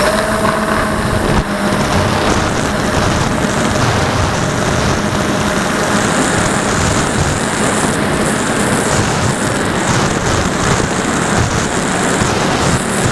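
Radio-controlled model Twin Otter's two motors and propellers running through take-off and climb, heard from a camera on the airframe: a steady motor whine over heavy rushing wind and propeller noise.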